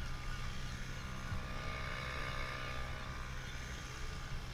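Outboard motor of a RIB running steadily while towing an inflatable canoe, its engine tone swelling in the middle, with wind rumble on the microphone and rushing water.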